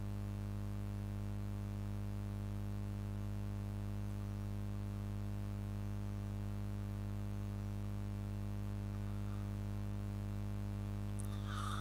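Steady low electrical hum with a faint hiss, picked up through the recording microphone, unchanging throughout.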